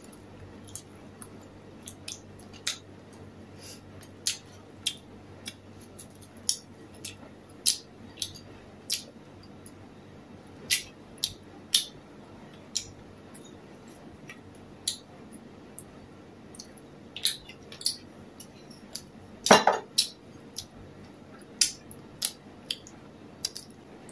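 Close-miked eating at a table: an irregular string of sharp clicks and smacks from chewing, mixed with cutlery and ceramic dishes clinking. One longer, louder clatter comes a little before the end.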